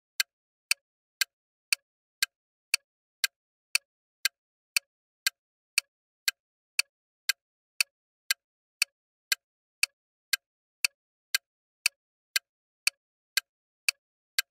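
Countdown-timer clock-tick sound effect: sharp, evenly spaced ticks, about two a second.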